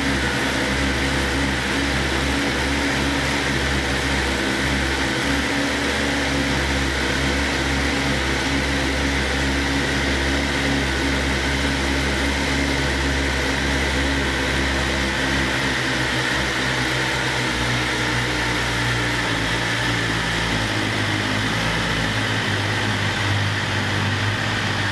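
A BMW S 1000 RR's inline four-cylinder engine idling steadily. Its low hum steps up in pitch over the last third.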